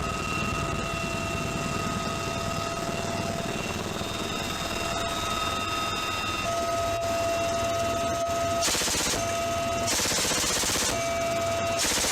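M134 minigun firing from an aircraft: the extremely fast rate of fire runs together into a continuous ripping buzz, heard as three short bursts of about a second each in the last few seconds. Under it runs the aircraft's steady engine whine.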